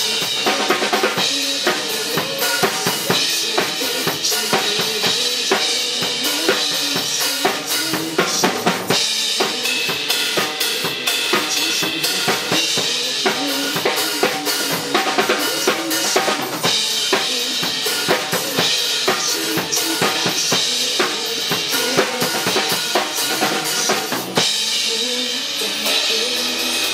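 Drum kit played live over a recorded pop song: kick drum, snare and rimshot hits keeping a steady groove over the backing music.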